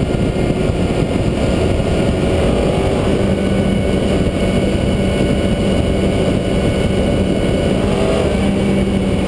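Heavy wind rushing over a bike-mounted camera at speed, with a Honda CBR954RR's inline-four engine running steadily underneath; a steady engine tone comes through more clearly about three seconds in.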